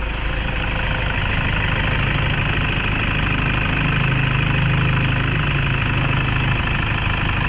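Toyota Fortuner's D-4D diesel engine idling steadily with the bonnet open, left running so the automatic transmission fluid level can be checked.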